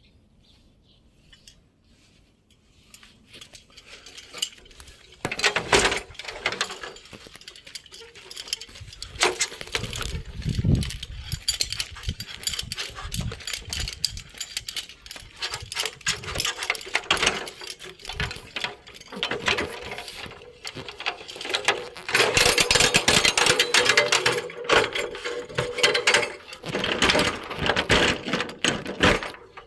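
Irregular knocking, rattling and rubbing of work gear being handled close to the microphone, starting about five seconds in and loudest near the end.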